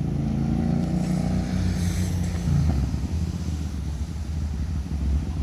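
Hyosung GT650R's 647 cc V-twin engine running steadily at a low, even speed, like an idle, with no clear revs.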